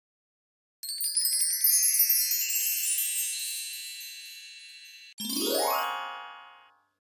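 Sparkly twinkling chime sound effect: a cluster of high bell-like tones that rings out and fades over about four seconds. It is followed by a quick rising glissando effect that fades away.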